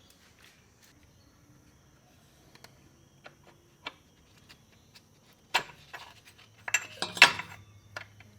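Metal clinking and clattering as tools and parts are handled: a few light taps, then a sharp clank about five and a half seconds in and a louder cluster of clinks about a second later.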